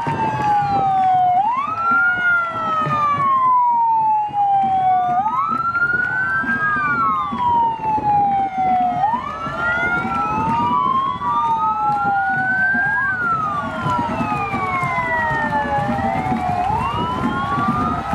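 Several police sirens wailing at once and out of step: each rises quickly, then falls slowly over about four seconds, over a low rumble.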